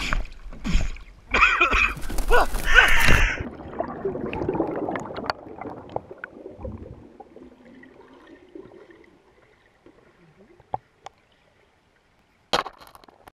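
Splashing water and shouting as a canoe tips over. Then muffled underwater bubbling and gurgling that fades away, with a short sharp noise near the end.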